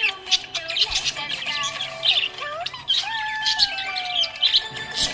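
Small pet parrots chirping and squawking in quick, sharp calls throughout, over background music with held and slowly sliding notes.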